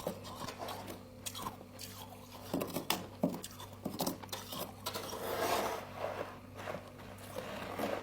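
Frost scraped from a humidifier being bitten and chewed close to the microphone: an irregular run of grainy crunches.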